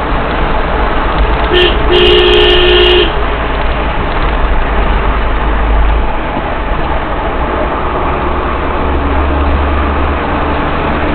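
Steady engine and road noise heard inside a car's cabin. About one and a half seconds in, a two-note car horn gives a short toot and then a held blast of about a second.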